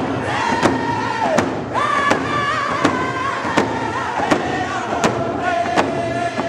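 A group of singers beating rawhide hand drums together in a steady beat, one strike about every three quarters of a second, while singing a round dance song in unison with long held notes.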